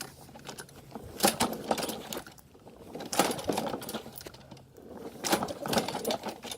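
Three pulls on a walk-behind lawn mower's recoil starter cord, each a rough second-long burst of cord and engine turning over, with no steady running engine after any of them.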